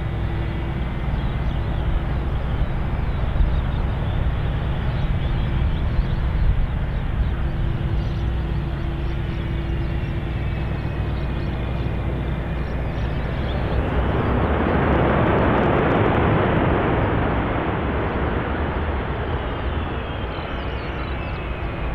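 Boeing C-17 Globemaster III's four turbofan jet engines running as the transport rolls along the runway: a steady jet roar that swells louder about two thirds of the way in, with a high whine falling in pitch.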